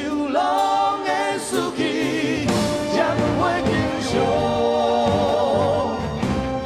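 A male singer sings a Chinese-language song into a microphone, over live orchestral accompaniment. His held notes waver with vibrato.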